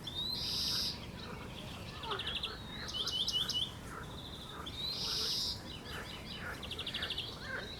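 A songbird singing by a lake, repeating varied phrases of high buzzy notes, fast trills and short rising whistles every second or two. Fainter calls sound underneath.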